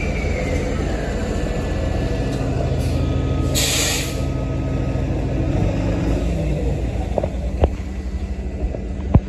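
Hybrid-electric city bus running as it pulls away and turns close by, its engine a steady low rumble. A short, sharp hiss of air from the brakes comes about three and a half seconds in, and two sharp clicks follow near the end.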